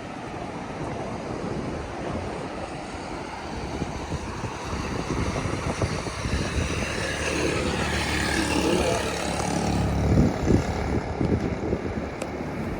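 An engine running and growing louder toward the middle, with wind buffeting the microphone.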